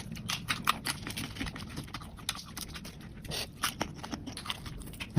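Someone eating up close: wet chewing and mouth sounds with many small irregular clicks and crunches, and a louder low thump right at the end.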